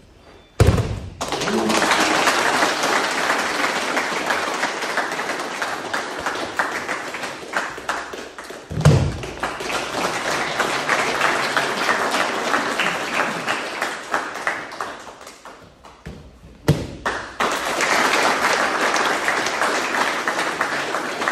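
A body thrown onto mats lands with a heavy thud three times, roughly eight seconds apart. Each landing is followed by several seconds of a crowd applauding.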